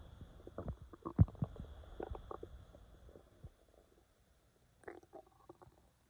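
Human stomach growling: a string of short, irregular gurgles, the loudest about a second in. They thin out to almost nothing past the middle, and a brief cluster of smaller gurgles comes near the end.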